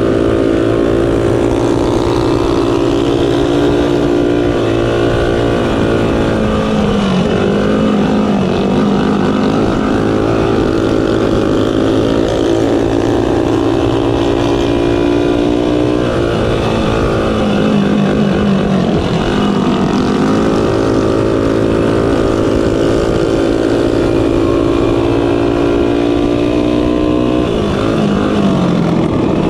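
Mini bike engine running hard at high revs. Its pitch drops three times as the rider eases off for the turns, then climbs back up each time on the straights.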